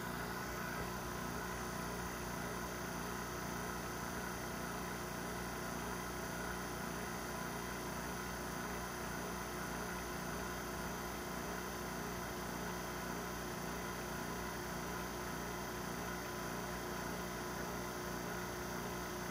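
A 7.1 CFM rotary vane vacuum pump running with a steady hum as it pulls the chamber down through a few Torr.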